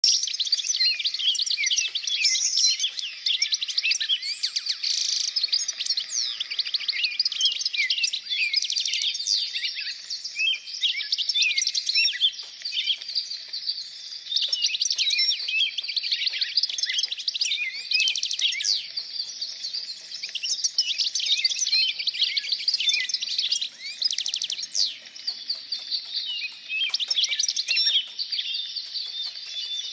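Many small birds chirping and singing at once, a dense continuous chorus of quick high chirps and short rising and falling notes.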